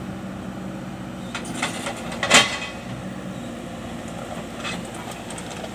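Kobelco hydraulic excavator's diesel engine running steadily as the machine works, with one sharp knock about two and a half seconds in and a few fainter clicks.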